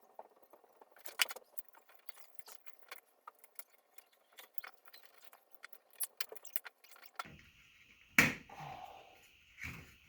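Light clicking and rattling of the power strip's metal housing and its cord being handled and fed back through, with a couple of louder knocks near the end.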